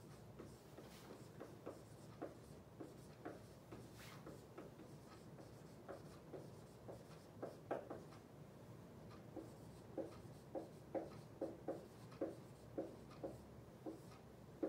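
Dry-erase marker writing on a whiteboard: many short, faint strokes of the felt tip against the board, coming quicker and a little louder in the second half as letters are written out.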